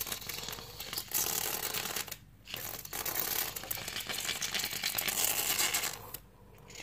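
Aerosol air-conditioner cleaner spraying onto the indoor unit's evaporator fins: a steady hiss that stops about two seconds in, then a second, longer spray.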